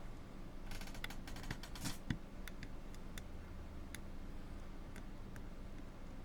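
Lock pick working the pin stack of a 5-pin brass padlock: a quick flurry of small metallic clicks a little under a second in, a low knock just after two seconds, then single light clicks about once a second.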